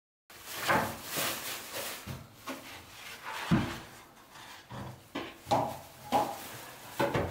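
Thin white plastic template strips being bent, pulled apart and scraped against each other and a plastic bag, in an irregular run of scrapes, rubs and clicks with one heavier knock about halfway through.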